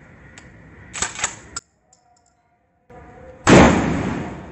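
Hatsan Escort Aimguard 12-gauge pump-action shotgun: the pump racked with a quick run of sharp clacks about a second in, then one loud shot about three and a half seconds in that fades out over about a second.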